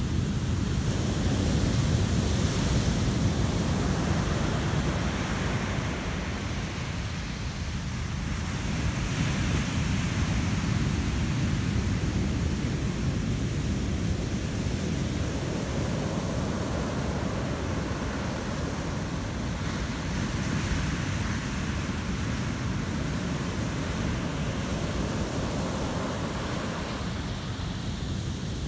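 Heavy ocean surf breaking and washing up a sand beach: a steady roar of breaking waves and foam that swells several times as waves come in.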